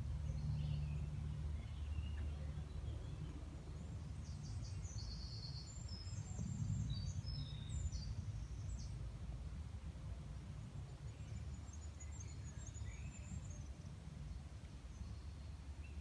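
Forest ambience: a steady low rumble with small birds chirping in short high twitters, busiest from about a quarter of the way in to past halfway and again later.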